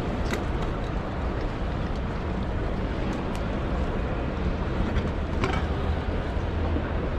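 Steady background noise of a large exhibition hall: an even wash of indistinct sound over a low hum, with a few faint clicks.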